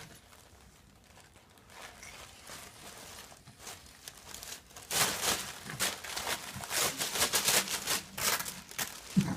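Paper being torn and crinkled in a quick run of short rips, starting about halfway through after a few quiet seconds.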